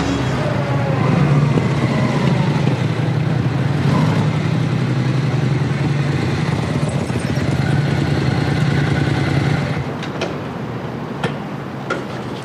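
Motorcycle engine running steadily as the bike rides up and pulls in, then cutting off about ten seconds in, followed by a few faint clicks.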